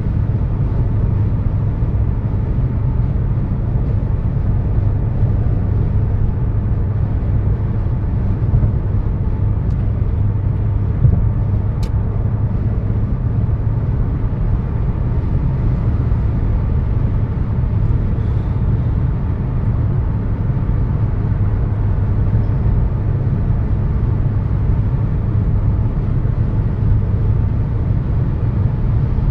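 Steady low road and engine rumble inside a car's cabin at highway speed, with a single click about twelve seconds in.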